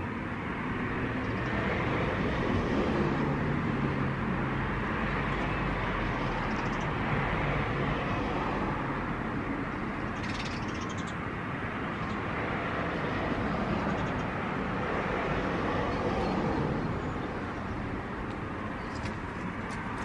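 Steady outdoor background rumble that swells and eases, with a few faint high bird chirps about halfway through.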